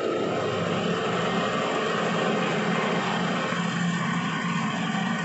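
Centre lathe running steadily, its four-jaw chuck spinning, while the carriage-mounted tool turns a step on the workpiece: a constant machine hum with a low drone under an even hiss.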